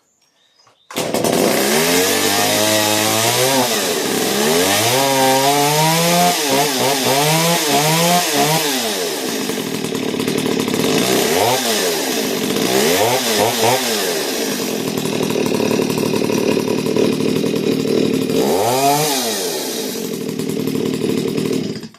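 Stihl two-stroke chainsaw engine running, revved up and back down over and over with the throttle. It starts abruptly about a second in and cuts off just before the end; the saw is running properly after repair.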